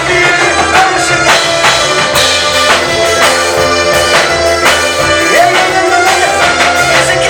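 Live praise and worship music: singing over a band with a steady drum beat.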